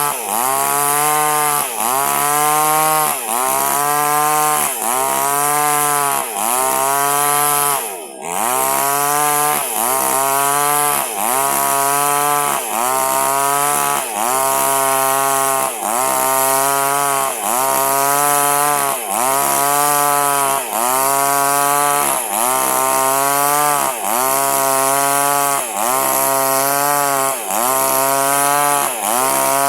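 Small two-stroke chainsaw cutting through durian wood at full throttle. Its engine pitch sags under load and recovers in a regular rhythm about once a second, with a brief let-off about 8 seconds in.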